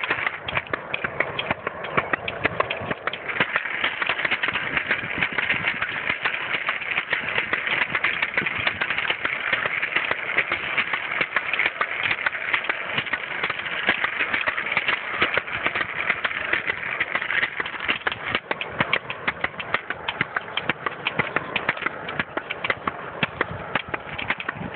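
Razor kick scooter wheels rolling steadily over a concrete sidewalk, a continuous rattling hum with a dense run of small ticks.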